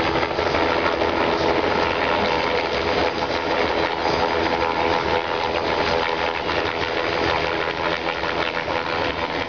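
Bell 206 JetRanger helicopter hovering low, its turbine and two-bladed rotor running loud and steady.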